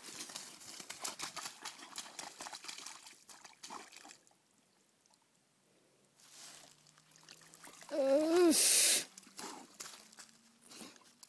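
Czechoslovakian wolfdog splashing and sloshing through a mud puddle, with wet splashing clicks for the first few seconds. About eight seconds in comes a short loud burst of noise with a pitched sound sliding up and down.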